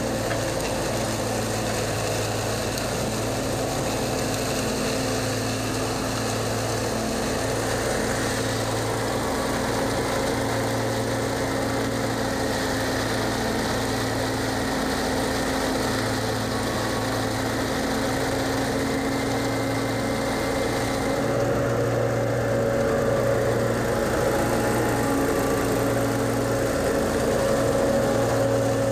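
Zero-turn mower engine running steadily as the mower drives over leaf-covered grass. There is a slight change in tone a little past two-thirds of the way through.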